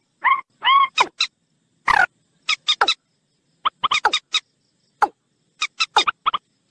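Recorded calls of common moorhen and watercock mixed together. Two longer arched notes open it, a falling call follows about two seconds in, and then come clusters of short, quick notes separated by brief gaps.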